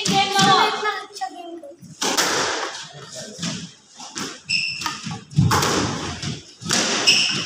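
A squash rally: the ball struck by rackets and smacking off the court walls, a string of sharp, echoing hits, with two brief squeaks of shoes on the wooden floor.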